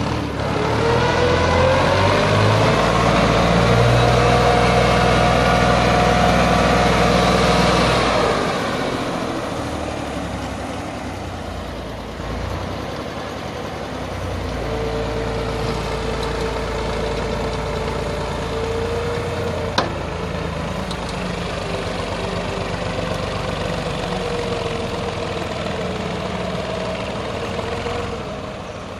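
Massey Ferguson 360 tractor's three-cylinder diesel engine working hard under load, hauling a heavily loaded trolley through soft mud. It runs loud and high for about the first eight seconds, then eases to a lower, steady run. A single sharp click comes about twenty seconds in.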